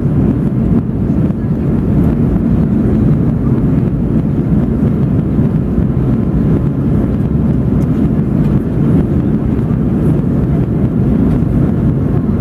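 Cabin noise inside an Airbus A320 climbing out after takeoff: a steady, deep roar of the engines and rushing air.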